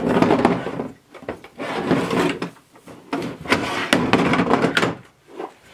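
Tools and hard cases clattering and scraping on a metal storage shelf as a pneumatic framing nailer is dug out and lifted free, in three spells of knocks and rattles.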